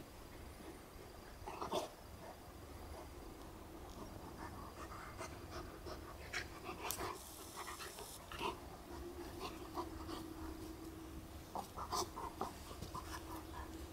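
Two dogs play-wrestling on grass, a Berger Picard puppy and a larger black dog, panting, with short scuffling and mouthing noises scattered through and a quick run of them near the end.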